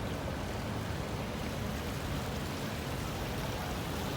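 Steady rushing hiss of air-conditioning airflow from the outdoor street's cooling system.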